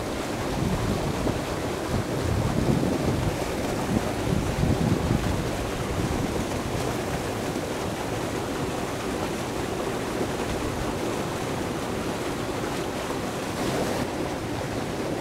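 Steady rush of water churning out of a dam spillway, with wind buffeting the microphone in the first few seconds.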